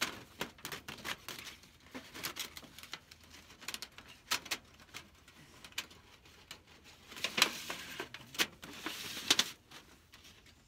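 Thin rolled titanium stovepipe of a Winnerwell Fastfold stove being handled as rings are fitted onto its end: sharp metallic clicks and crinkling of the thin sheet, loudest in a burst of crinkling and two sharp clicks near the end.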